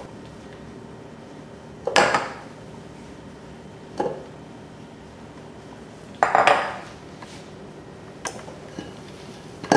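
Spatula knocking and scraping against a stainless-steel mixing bowl and a glass bowl: about five separate clinks a couple of seconds apart, the longest a short clatter a little past the middle, as beaten egg whites are scraped out and folded into the cream.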